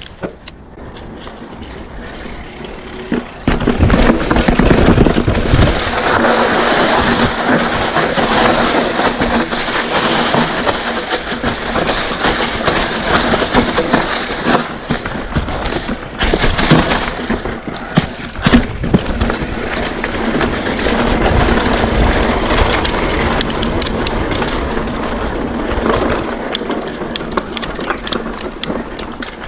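Mountain bike rolling downhill on a dirt trail: tyres running over dirt and rocks and the bike rattling, with wind on the microphone. The noise gets much louder about three seconds in, and there are sharp knocks from bumps along the way.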